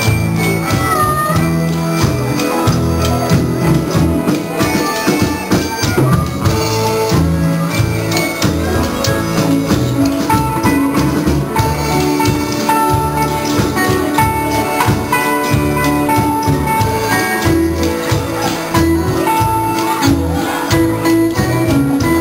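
Live jam band playing an instrumental passage on acoustic and electric guitars, with a strummed rhythm under a held lead melody.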